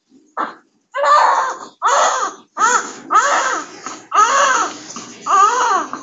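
Newborn baby crying: a short gasp, then a run of loud wails, each under a second, one after another.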